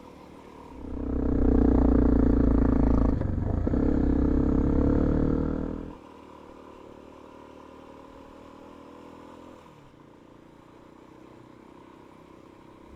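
Motorcycle engine pulling hard under acceleration, with a brief dip about three seconds in like a gear change and the pitch then climbing again. It cuts off suddenly about six seconds in, leaving a faint steady engine drone.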